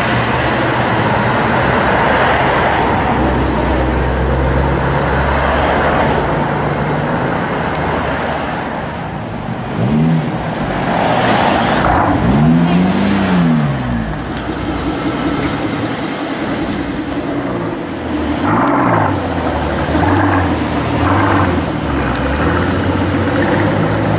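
A Lamborghini Aventador LP750-4 SV's V12 running as the car pulls away, followed by a Mercedes-AMG S-Class coupé's engine revving up and down, with a long rev about halfway through and several short blips near the end.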